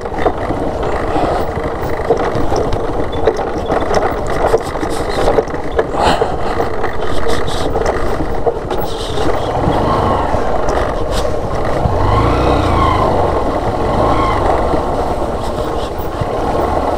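Motorcycle engine running while the bike rides over a rough, rocky dirt road, with scattered knocks and rattles from the rough surface.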